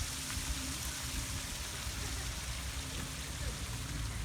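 Steady water noise, an even hiss with a low rumble underneath.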